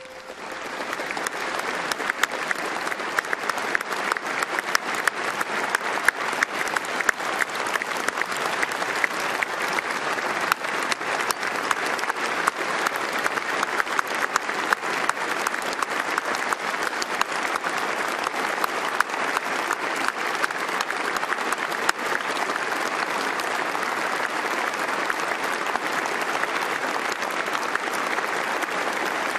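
Large audience applauding: dense, continuous clapping that swells up in the first second or so and then holds steady.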